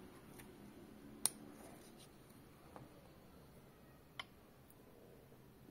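A few light clicks against near silence, the sharpest about a second in: a lead ball slug and its plastic wad being handled on the metal pan of a small digital pocket scale.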